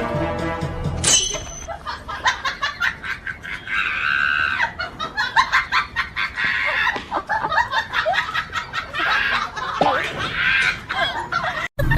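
Rooster squawking and clucking in a scuffle with a dog, among many short knocks and scrapes. A stretch of music cuts off about a second in.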